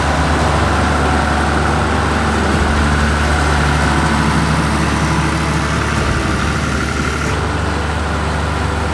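Schlüter Compact 950 V6 tractor's diesel engine running steadily while pulling a mounted tine weeder through a maize field.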